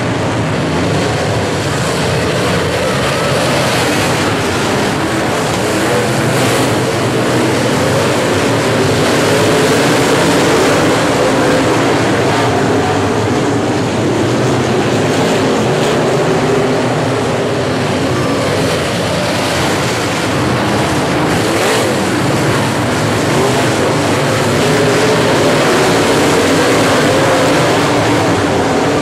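Several dirt-track modified race cars' engines running hard around an oval. The sound is a dense, continuous engine noise with wavering pitch, growing louder and then fading twice as the cars circle.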